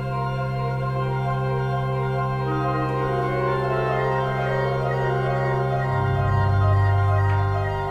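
Electronic organ holding long, sustained chords in a historical non-equal tuning. The upper notes shift about halfway through, and a louder low bass note comes in about six seconds in.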